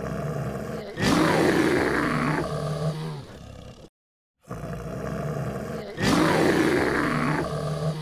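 A bear's roar, heard twice: a low rumble swells into a loud roar about a second in, then trails off. After a brief silence the same roar comes again, about six seconds in.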